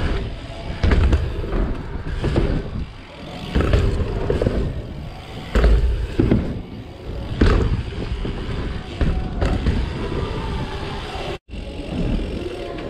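Norco mountain bike riding over wooden ramps and jumps: tyres rumbling on the plywood, with a thud at each landing or transition every second or two, and wind buffeting the camera microphone.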